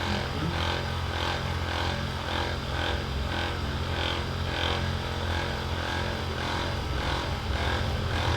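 Steady mechanical hum, with a pulsing that repeats about two to three times a second.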